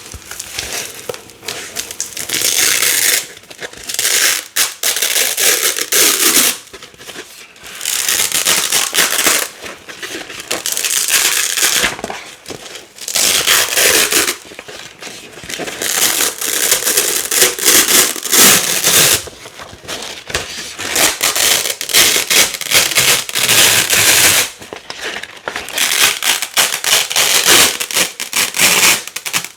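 Black Velcro hook-and-loop plates being torn apart again and again, each pull a loud, crunchy crackling rip lasting a second or two, with short pauses between pulls.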